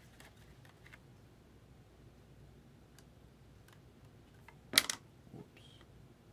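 Faint clicks and taps of trading cards and card sleeves being handled on a table, with one sharp, louder click nearly five seconds in and a softer one just after.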